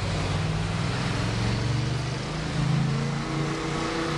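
Street traffic: a passing vehicle's engine rising in pitch about a second in as it accelerates, over steady road noise. A higher engine tone joins near the end.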